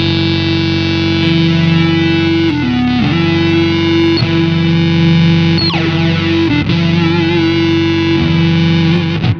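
Electric guitar played through an EarthQuaker Devices Data Corrupter PLL synth pedal, with the root set one octave down: held notes come out as a thick, distorted synth tone full of added harmonics. The pitch changes a few times.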